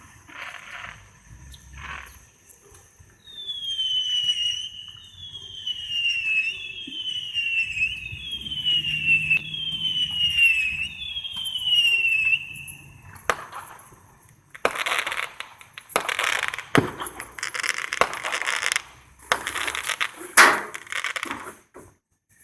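Fireworks going off: a falling whistle repeated six times in even succession, then several seconds of hissing and crackling bursts with a couple of sharp bangs.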